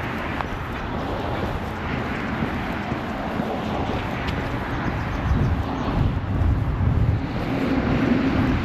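Wind buffeting the microphone over open-air walking ambience, with a low steady engine hum coming in near the end.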